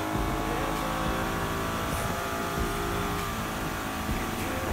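Mercury 115 two-stroke outboard motor running at speed, with water churning in the wake.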